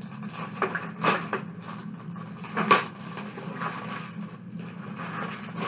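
Rustling and a few light knocks as kit items and their plastic packaging are handled, the loudest knock about two and a half seconds in, over a low steady hum.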